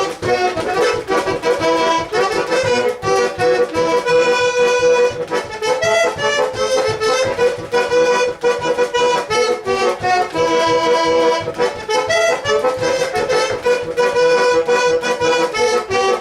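Garmon (Russian button accordion) playing an instrumental break in a folk song: a melody over steady rhythmic bass-and-chord accompaniment, with no singing.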